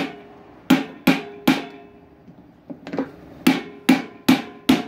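Hammer blows on a steel chisel held against the shaft hub of an Ariston washing machine drum, knocking the drum and shaft free for a bearing change. There are three quick blows, a pause of about a second, then a run of five, each with a short metallic ring.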